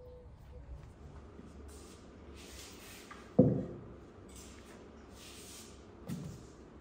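Things being set down on a table: one sharp, loud knock about halfway through and a softer low thump near the end, with brief rustling hisses between.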